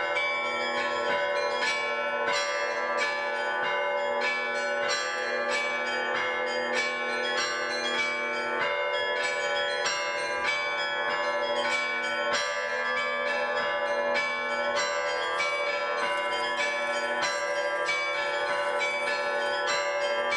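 Russian-style bell ringing (zvon): several bells of different pitches struck in a quick, steady rhythm, two to three strokes a second, each tone ringing on under the next. A deep bell drops out about a third of the way through.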